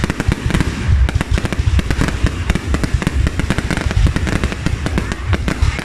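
Fireworks going off in a dense, continuous barrage: many overlapping booms and crackling bangs with no break.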